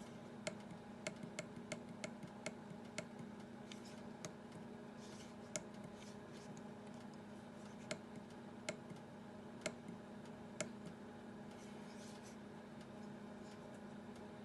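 Faint clicks of buttons being pressed on a deck oven's push-button control panel, about a dozen in all: quick in the first few seconds, then further apart. A steady low hum runs under them.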